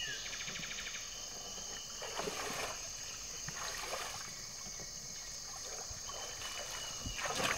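Water trickling and lapping around a small boat on a river, with short louder splashes about two seconds in and again near the end, over a faint steady high whine.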